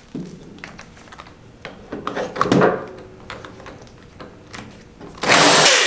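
A cordless drill being fitted onto the shaft of a slant six distributor clamped in a vise: a run of light clicks and rattles from the chuck and metal parts being handled, then a short, loud rush of noise about five seconds in.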